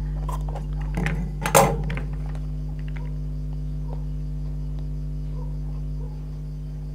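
Scissors set down and a hot glue gun picked up on a wooden table: a few knocks about a second in and a louder clatter just after, over a steady low hum.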